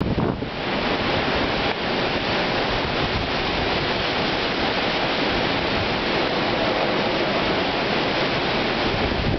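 Hurricane wind blowing hard through trees, a steady, dense rush with no let-up, like a jet overhead.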